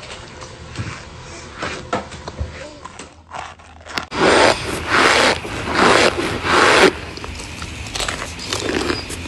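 Chunks of cornstarch being chewed with soft, scattered crunches, then, from about four seconds in, several loud crunches as packed cornstarch chunks are crushed, followed by softer crunching.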